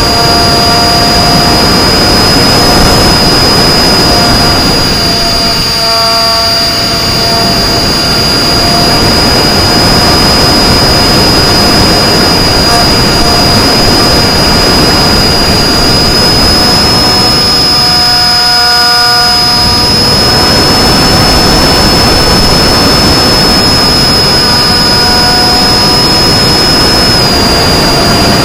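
Loud rush of air over the onboard microphone of an FPV flying wing in flight, with a steady high whine from its electric motor and propeller running throughout. The rush eases briefly twice, about six and nineteen seconds in.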